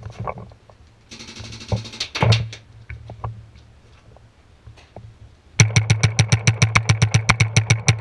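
Paintball marker firing a rapid, evenly spaced string of shots, about ten a second, starting a little past halfway and running for over two seconds. A few scattered shots and thuds come earlier.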